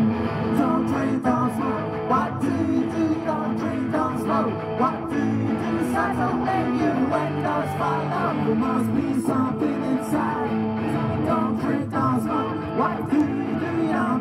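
Live rock band playing: electric guitar through Marshall amplifiers and drums, with a steady beat and singing over them, amplified through the festival PA.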